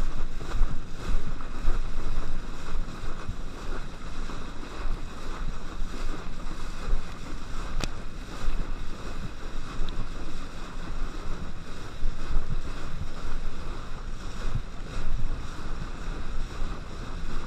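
Wind buffeting the camera microphone and water rushing under a kneeboard towed at speed across a boat's wake, with a heavy gusty rumble throughout. A single sharp click about eight seconds in.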